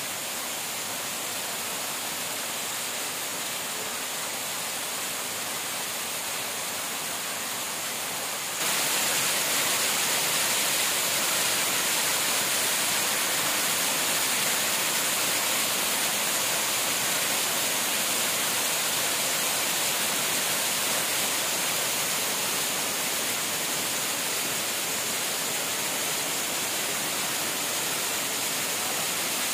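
Small waterfall cascading over rocks: a steady rush of water that jumps abruptly louder about nine seconds in.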